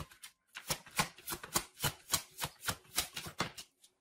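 A deck of tarot cards being shuffled by hand: a quick, even run of crisp card slaps, about five a second, pausing briefly near the start and stopping shortly before the end.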